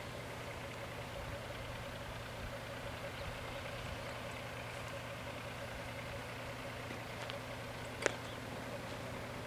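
A car engine idling steadily, with a single sharp click about eight seconds in.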